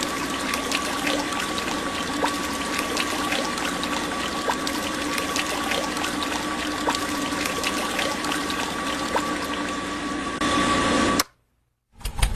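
Small DC-motor pump of a DIY model concrete pump running steadily with a thin motor whine, liquid trickling and splashing with scattered small clicks. It cuts off suddenly about eleven seconds in, and music with a beat starts just before the end.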